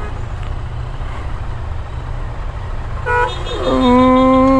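Low, steady rumble of idling engines in slow traffic, then a vehicle horn: a short toot about three seconds in, followed near the end by a long, loud, steady horn blast.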